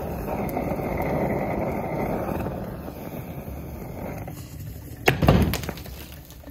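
Sodium metal burning in dry water, a steady hissing rush as the hydrogen it releases burns, fading after about four seconds. About five seconds in, a short sharp pop as the burning mix bursts and spatters the powder.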